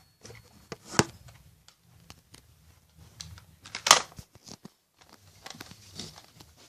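A scattering of sharp clicks and knocks, with a louder one about a second in and the loudest just before four seconds.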